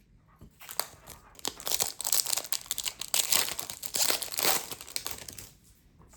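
Foil hockey-card pack wrapper crinkling and tearing as it is opened by hand, a dense run of crackles that dies away near the end.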